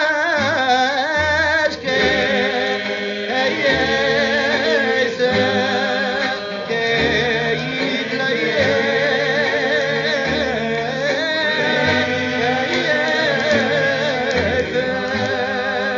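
Cape Malay vocal music played from a vinyl LP: voices singing with a wide, wavering vibrato over a low bass line that moves note by note.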